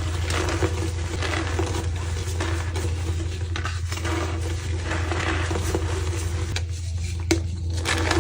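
Soft, dusty blocks of reformed white gym chalk being crushed, crumbling and squeaking in repeated waves, with one sharp crack about seven seconds in. A steady low hum runs underneath.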